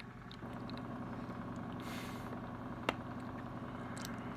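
Steady low mechanical hum, slightly louder from about half a second in, with one sharp click just before three seconds.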